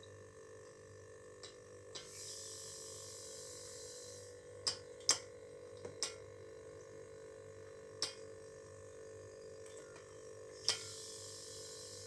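Refrigerator compressor running with a steady hum while freon is charged into the low-pressure side. The refrigerant hisses through the manifold and hose in two spells, about two seconds in and again near the end, as the valve is opened and shut. A handful of sharp clicks come from the brass manifold gauge set being handled.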